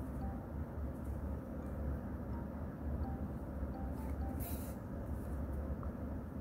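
Steady low hum of room noise, with a brief swish about four and a half seconds in as yarn is drawn through the crocheted fabric with a tapestry needle.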